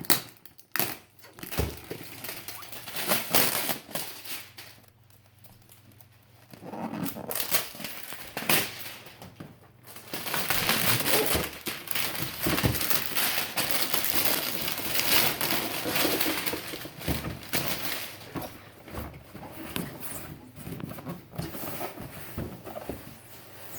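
Plastic shrink wrap being torn and crumpled off a cardboard box, in irregular crackling spells, with a quieter pause about five seconds in and a longer, louder stretch of ripping and crinkling after about ten seconds.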